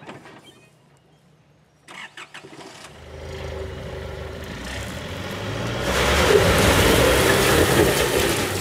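Four-wheel drive's engine revving under load as it climbs a steep off-road track. It starts after a few short knocks about two seconds in and builds to its loudest near the end.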